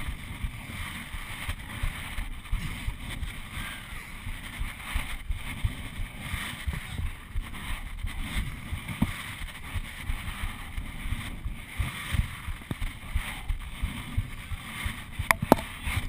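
Wind and movement rumble on a head-mounted camera's microphone, worn by a performer swinging on a bungee cord, with a sharp click near the end.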